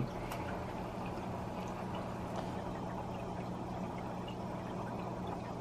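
Aquarium bio-wheel power filter running: a steady low hum with water trickling and bubbling into the tank.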